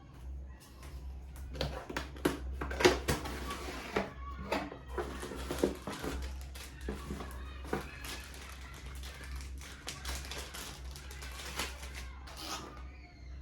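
Packaging being handled and opened by hand: irregular clicks, taps and rustles of plastic and cardboard, over a low steady hum.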